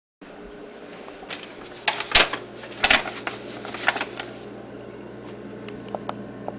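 A few sharp knocks and clicks at irregular moments over a steady low hum. The loudest come about two and three seconds in, and smaller ones follow near the end.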